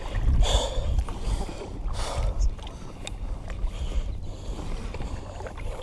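Kayak paddle strokes in the water, with two louder splashes in the first couple of seconds, over a steady low rumble.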